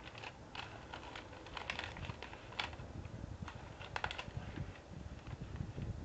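Crumpled white paper wrapper crinkling and crackling as it is handled, in irregular sharp clicks.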